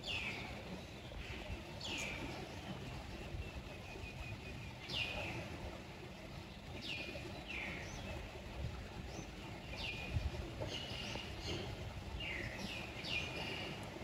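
A bird's short high chirps, a dozen or so at irregular intervals, each sliding sharply down in pitch, over a low steady rumble of outdoor background noise.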